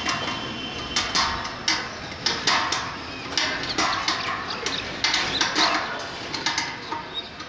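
Irregular sharp knocks and clinks, about two a second, from hands and tools working on a satellite dish's mount and bracket.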